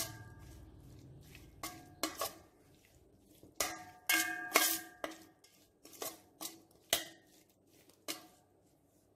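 Metal spoon clinking and scraping against a stainless steel bowl while tossing spice-coated fish, about a dozen irregular knocks that each ring briefly.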